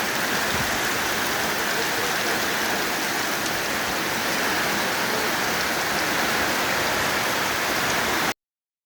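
Heavy rain pouring down, a steady dense hiss with no let-up; the sound cuts off abruptly near the end.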